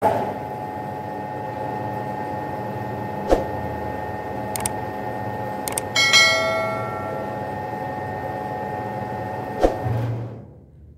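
Steady hum of a cricket-bat roller press machine, with a sharp knock twice. Partway through come a couple of mouse clicks and a notification-bell ding that rings and dies away over about a second. The sound fades out near the end.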